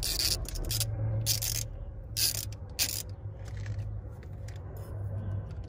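Ratchet wrench clicking in several short spells, most of them in the first three seconds, as the thermostat housing bolts are backed out. A steady low hum runs underneath.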